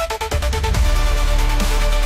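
Electronic background music with heavy bass and held synth notes; a fast stuttering run of beats breaks off about three quarters of a second in and the full beat comes back in.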